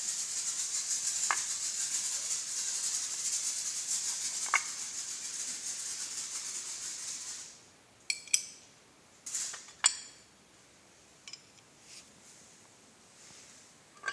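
A fast, steady rattle, like a shaker, for about seven seconds: the removed Ford 1.4 TDCi oil pump being shaken by hand. It is followed by a few sharp metal clicks and taps as the pump parts are handled.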